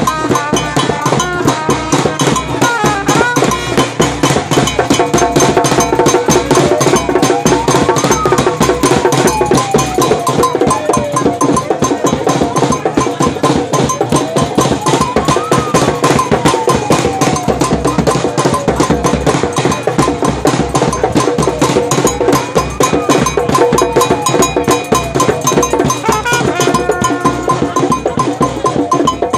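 Live street-band music: a hand-held metal bell and drums keep a fast, driving rhythm, with a trumpet among the instruments. Three times a tone slides slowly up and back down in pitch.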